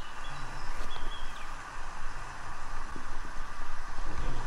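Steady rushing of a river flowing nearby, with a few faint high chirps over it.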